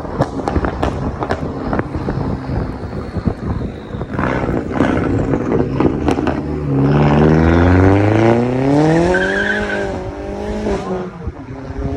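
Straight-piped VW Jetta exhaust popping and crackling in quick irregular bangs, then the engine revving up and falling back once about halfway through, with a further rev starting near the end.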